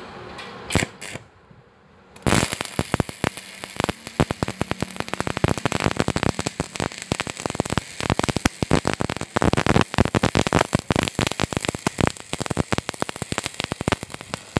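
Stick-welding (arc-welding) electrode arcing on a steel roof-truss joint: a couple of brief sputters as the arc is struck, then from about two seconds in the steady, dense crackle and sizzle of the running arc, which breaks off suddenly near the end.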